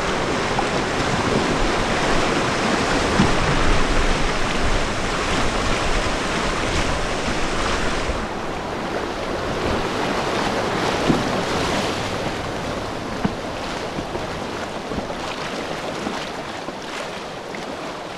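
Whitewater rapids rushing and splashing around an inflatable kayak, with some wind on the microphone; the rush eases a little about eight seconds in as the water calms.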